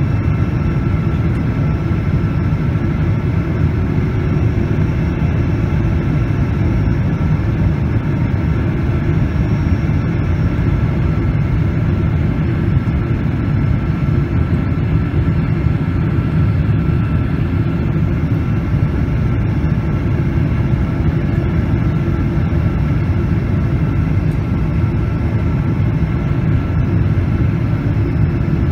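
Steady cabin noise of a Boeing 777-200 on descent, heard from a window seat over the wing: a deep drone of airflow and the Pratt & Whitney engines, with a faint steady whine above it.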